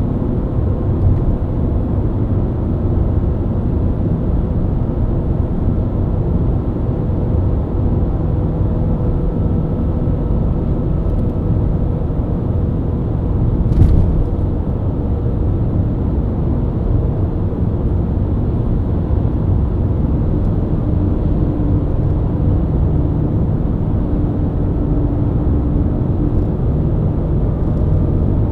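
BMW E90 323i inline-six engine running at steady highway cruise, with continuous tyre and road rumble. A single brief thump comes about fourteen seconds in.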